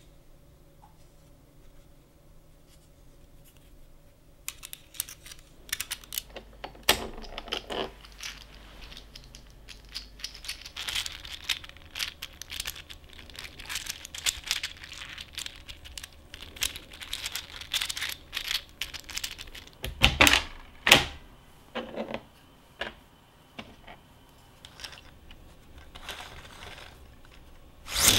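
Small hard objects being handled by hand: irregular clicking, rattling and rustling that starts a few seconds in, with a few louder sharp clicks near the end.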